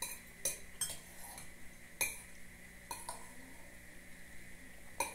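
A spoon clinking and scraping against a glass soup bowl while eating: about eight sharp, irregular clinks, the loudest about two seconds in and at the end.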